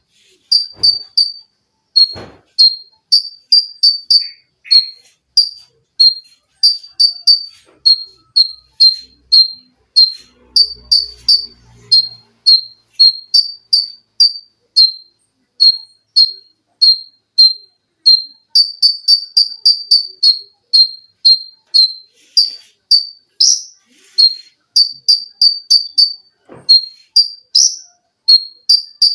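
A konin bird singing a long run of short, sharp, high chips, about two to four a second, sometimes bunched into tight rapid volleys.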